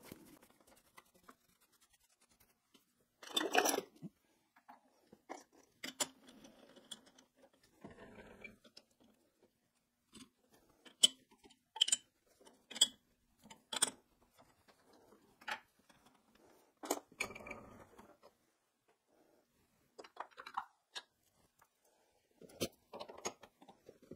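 Hand work on a stopped metal lathe's chuck: a chuck key turning and clicking in the jaws as a gear blank is clamped, with scattered light metal clicks and knocks. Near the middle comes a run of four sharp clicks about a second apart.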